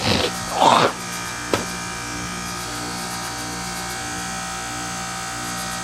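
Goodman heat pump outdoor unit running in its defrost cycle with the fan stopped: a steady buzzing hum that pulses about one and a half times a second. A couple of brief rustles and a click come in the first two seconds.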